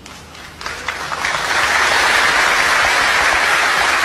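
Audience applauding, swelling up from about half a second in and then holding steady.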